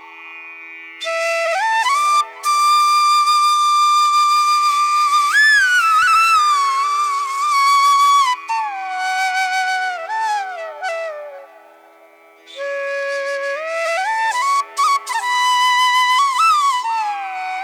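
Background flute music: a slow melody of long held notes with sliding pitch bends over a steady drone, with brief pauses about a second in and again about two-thirds of the way through.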